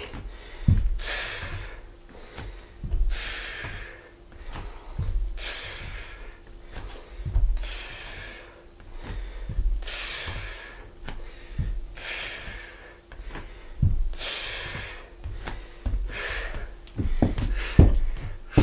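A man breathing hard, with a heavy out-breath about every two seconds, under soft thumps of bare feet and a knee on a wooden floor as he lunges. Several quicker, sharper thumps come near the end as his hands land on the floor.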